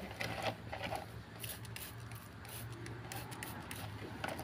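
Dirty motorcycle drive chain clinking and scraping as it is handled in a plastic basin, with short sprays from a trigger spray bottle of engine cleaner, over a steady low hum.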